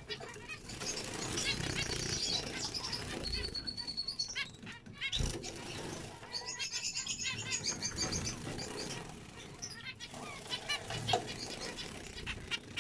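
Zebra finches singing and chattering: bursts of rapid high notes, one held high note near the middle, with wing flutters and a single sharp knock a little after five seconds in.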